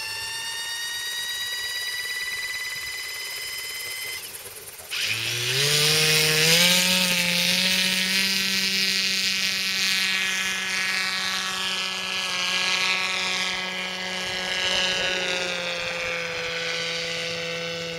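Small engine of a large model autogyro: a whine rising in pitch for about four seconds, a brief dip, then the engine opens up about five seconds in and climbs in pitch to full power for the take-off run and climb-out, then runs steadily high.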